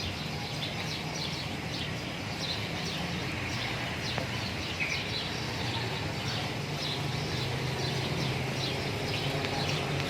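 Many small birds chirping continuously, in short, quick, high calls, over a low steady hum.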